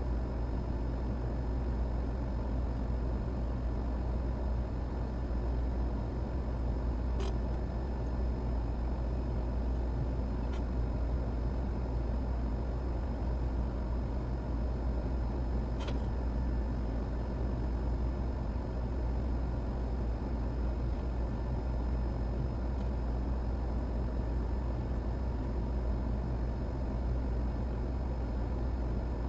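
Steady low hum and hiss of running bench equipment, with a few faint clicks about a third and half of the way through.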